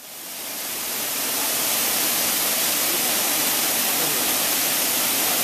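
Waterfall: a steady rush of falling water that fades in over the first second and a half, then holds steady.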